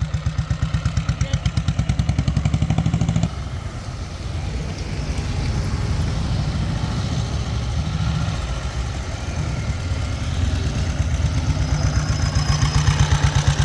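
Diesel Royal Enfield Bullet's single-cylinder engine thudding with a steady pulsing beat as the bike pulls away; the sound drops off about three seconds in as it moves off, then grows louder again near the end as it comes back.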